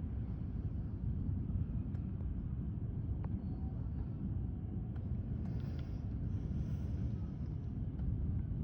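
Steady low outdoor rumble with a few faint clicks: ambient noise under a light breeze.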